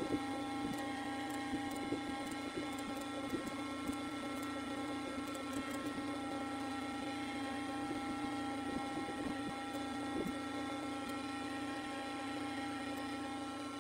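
A steady machine hum holding several fixed tones, with scattered light clicks from a computer mouse.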